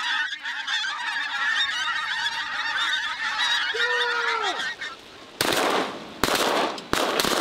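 A large flock of pink-footed geese honking overhead, a dense chorus of many birds calling at once that dies away about five seconds in. Then come four sudden loud bangs in the last two seconds.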